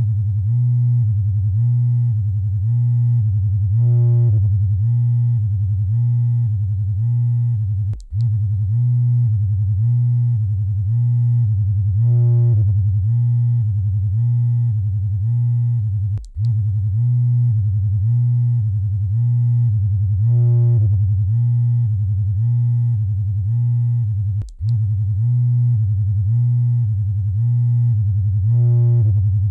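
Vibrator motor buzzing with a low hum that pulses evenly about twice a second, cutting out briefly about every eight seconds.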